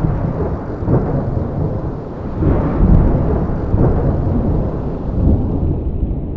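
Loud, low rumbling noise that swells and eases several times without pause.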